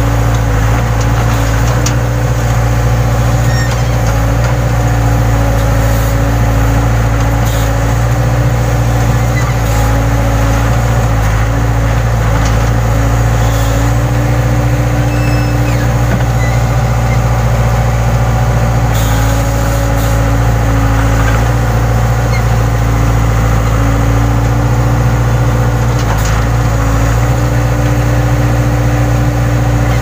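Case 580 Super K backhoe loader's four-cylinder diesel engine running steadily as the backhoe digs, heard from the operator's seat. A few faint knocks come from the boom and bucket.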